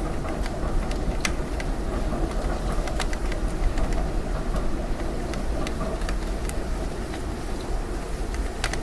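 Raindrops ticking irregularly on an apartment window over a low, steady rumble of passing city vehicles.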